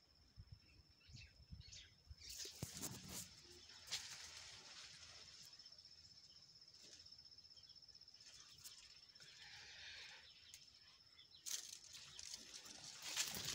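Quiet garden ambience with a faint, steady high-pitched tone. A few soft clicks and rustles come a few seconds in, and louder rustling of leaves and stems starts near the end.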